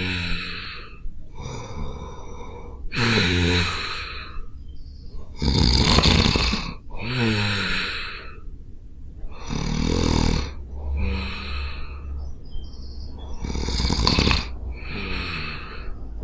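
A person snoring in deep sleep: a pitched, rattling snore alternating with a breathy rush of air, about one breath cycle every four seconds, four times over.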